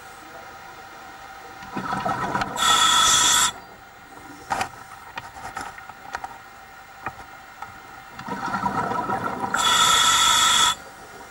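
A scuba diver breathing through a regulator underwater, two breaths: each time a bubbling rumble followed by a loud hiss lasting about a second. A few faint ticks fall between the breaths.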